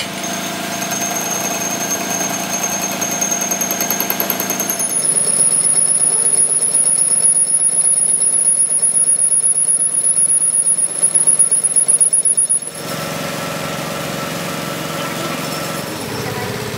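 Metal lathe turning a rear axle shaft's flange with a cutting tool. About five seconds in, the cut turns into a high, steady squeal with rapid chatter, which stops suddenly after about eight seconds, leaving the lathe running.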